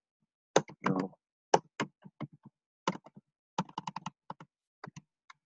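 Computer keyboard typing: about twenty key clicks in quick, uneven bursts.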